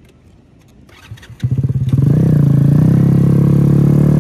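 Cimatti Bulk GT motorcycle engine starting about a second and a half in, catching after a few quick pulses. It then runs steadily at an even pitch. A few light clicks come before it.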